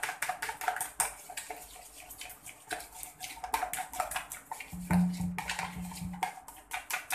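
Egg mixture being beaten by hand in a plastic bowl: a quick run of wet slapping, splashing strokes. A low hum joins for about a second and a half around five seconds in.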